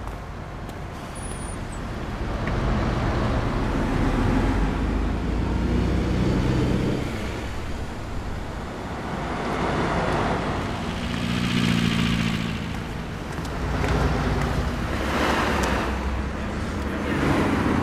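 Road traffic: motor vehicles driving past one after another, the engine and tyre noise swelling and fading every few seconds.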